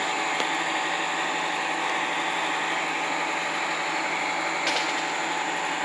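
Steady mechanical hum and hiss with a constant whine, unchanging in level.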